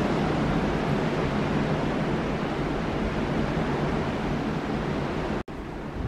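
Strong wind blowing hard, a steady rushing noise heavy in the low end as it buffets the microphone. The sound cuts out for an instant near the end and comes back a little quieter.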